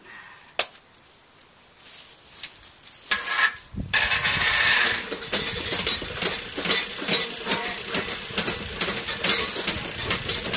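Electric drum drain snake starts up about four seconds in and keeps running, a steady motor whine with quick, irregular clicking and rattling from the spinning steel cable as it is fed into the drain line.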